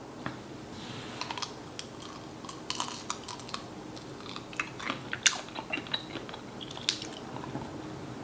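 Close-miked chewing and mouth sounds of someone eating, with irregular small clicks and smacks scattered through.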